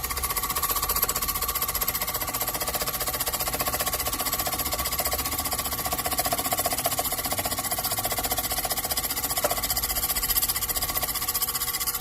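Sherline mini milling machine running with its cutter in the cut, making a steady whine over a fast, even rattle.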